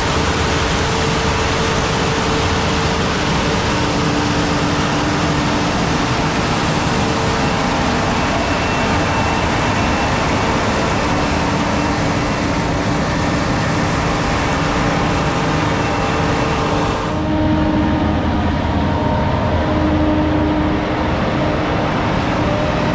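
A vehicle running steadily, a dense mechanical hum with a few held tones. About seventeen seconds in, the high hiss cuts out abruptly while the lower hum carries on.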